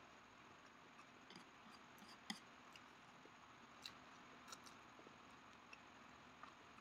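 Faint, sparse clicks and taps of wooden chopsticks against each other and the tray while picking up and eating noodles. The sharpest click comes a little over two seconds in, with a few softer ones after it.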